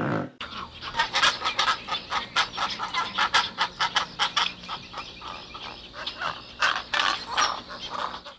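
Birds calling: a dense, irregular run of sharp clicking and chattering calls.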